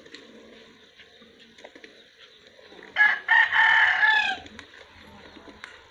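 A rooster crows once, about three seconds in: a loud call of about a second and a half that falls in pitch at the end.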